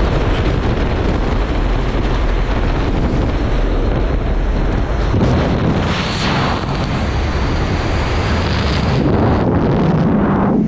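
Loud steady wind rushing over a helmet camera's microphone as a skydiver leaves the open door of the jump plane and falls freely, the airflow swelling briefly about six seconds in.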